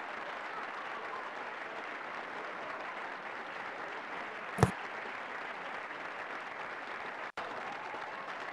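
Steady outdoor hiss, with one sharp thud of a football being kicked about four and a half seconds in.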